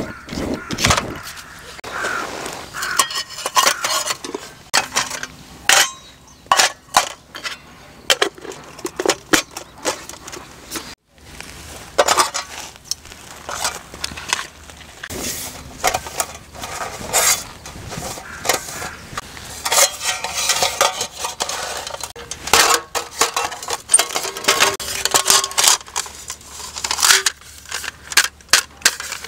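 Camp gear being handled and packed away by hand: an irregular string of clinks, clatters and knocks from metal cookware, utensils and the panels of a folding camp table.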